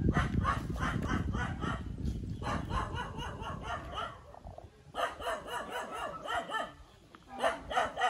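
An animal giving rapid runs of short pitched calls, several a second, in four bouts with brief pauses between. A low rumbling noise lies under the calls in the first two seconds.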